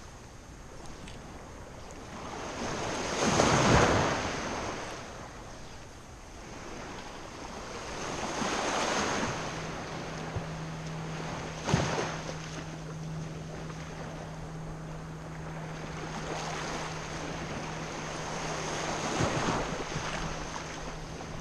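Small waves washing in calm shallow seawater, swelling loudest about three and a half seconds in and again around nine and nineteen seconds. There is a sharp click about twelve seconds in, and a steady low hum sets in about halfway through.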